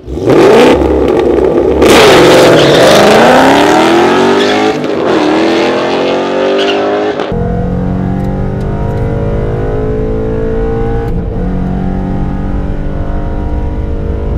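2013 Ford Mustang GT's 5.0 V8, with an off-road X mid-pipe exhaust, launching hard from the drag strip start line and accelerating at full throttle, its pitch climbing and dropping back twice at manual gear shifts. About seven seconds in the sound changes abruptly to the engine drone heard inside the cabin, steadier and slowly rising as the car runs down the quarter mile.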